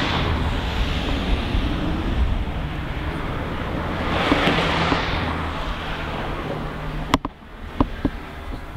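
Wind buffeting the microphone over a steady low rumble, swelling about four seconds in. About seven seconds in the wind noise drops away and a few sharp clicks and taps follow.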